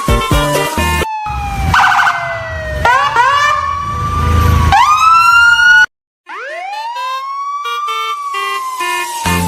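Siren wail, a tone that sweeps up quickly and then falls slowly, repeating several times, mixed with short stepped musical notes. The sound cuts out completely for a moment about six seconds in.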